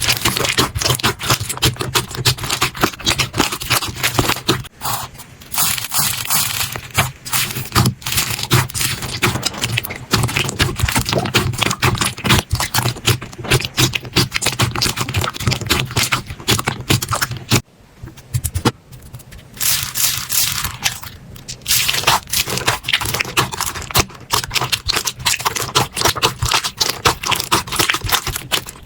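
Slime being squished and worked: a dense, continuous run of crackles, clicks and pops, breaking off briefly a little past halfway.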